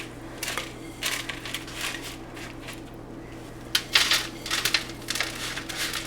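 Sticky oat granola mixture being scraped and spread across a sheet pan: irregular scraping, crunching strokes, a few in the first two seconds and more from about four seconds in, over a steady low hum.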